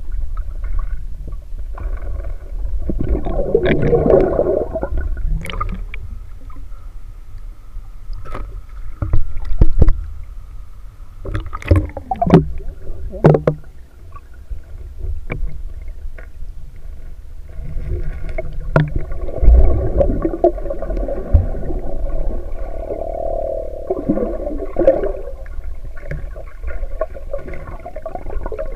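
Muffled underwater sound picked up through a camera's waterproof housing in a river: a constant low rumble, gurgling bubbles twice, and a few sharp knocks in between.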